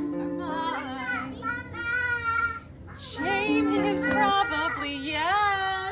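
A song's recorded accompaniment playing held chords, with a toddler's high voice singing and calling over it in long, wavering notes. The chords stop a little past four seconds in, and the child's voice goes on, sliding upward near the end.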